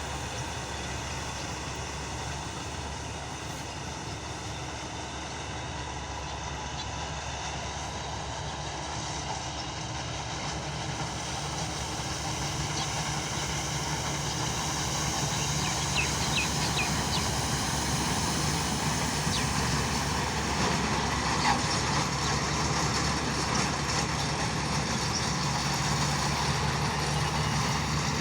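Marksan combine harvester running steadily, its engine and working machinery making a continuous mechanical hum that grows gradually louder.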